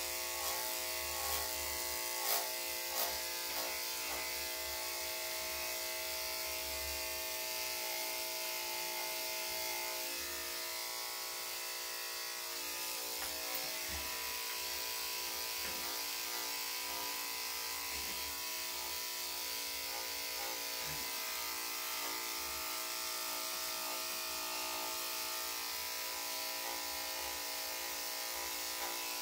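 Electric dog grooming clippers running with a steady motor hum, with a few light clicks in the first few seconds.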